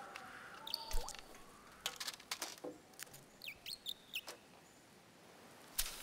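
Cartoon sound effects for a small bird character: quick clicks and short, high squeaky chirps, several sliding down in pitch. A sharp knock with a low thud comes about a second in, and another sharp knock near the end.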